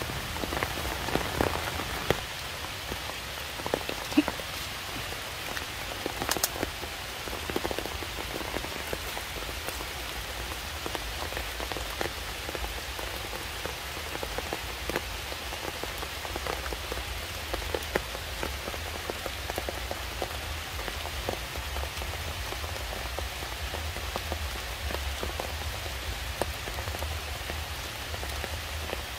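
Steady rain falling, with scattered sharper drips and taps.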